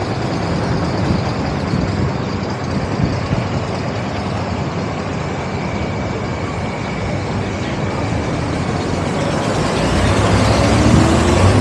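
Steady road traffic noise from passing vehicles. Near the end a heavy vehicle's engine grows louder, its pitch rising as it pulls away.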